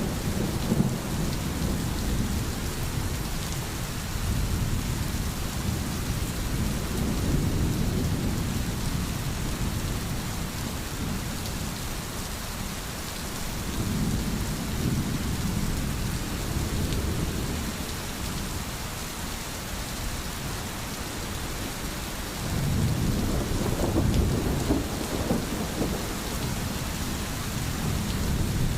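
Steady rain falling, with soft rolls of thunder rumbling low and swelling up three times.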